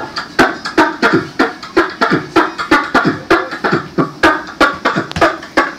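Beatboxing into a handheld microphone, amplified through a small portable speaker: a steady hip-hop beat of sharp kick and snare sounds, about two to three a second.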